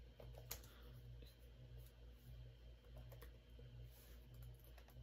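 Faint, scattered clicks of typing on a keyboard over a low steady hum.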